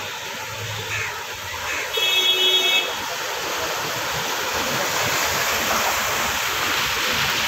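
Traffic driving through floodwater on a road: a steady rush of water churned by wheels that grows louder in the second half. A vehicle horn honks once for about a second, about two seconds in.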